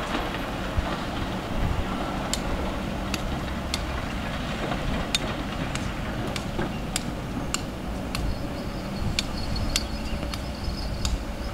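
Diesel engines of trucks and excavators running at a mining site, a steady low rumble. From about two seconds in, sharp clicks recur roughly every two-thirds of a second.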